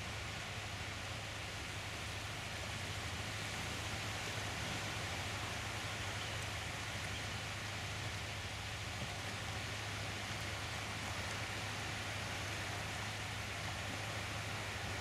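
Steady hiss of sea surf washing onto a sandy beach, with a constant low rumble underneath.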